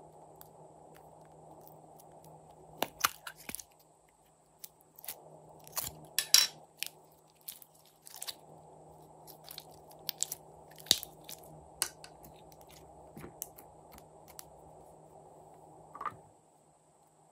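Irregular sharp clicks and crackles of small plastic capsule containers full of slime being handled, opened and squeezed to push the slime out, over a faint steady hum.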